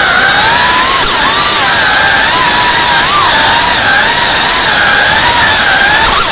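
Tiny-whoop FPV drone's small motors and propellers whining loudly, the pitch rising and falling continually as the throttle changes.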